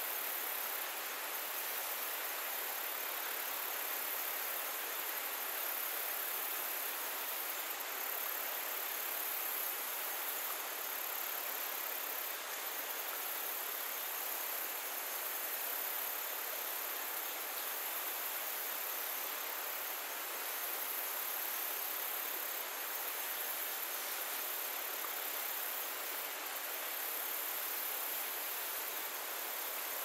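Shallow stream water running steadily over pebbles and leaves, an even hiss with a brighter high-pitched edge and no distinct splashes.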